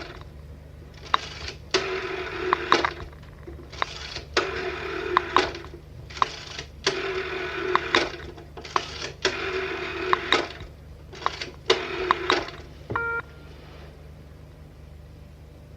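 Old-style telephone bell ringing in a double-ring cadence, several rings in pairs, then stopping about twelve seconds in. A short beep with a click follows soon after.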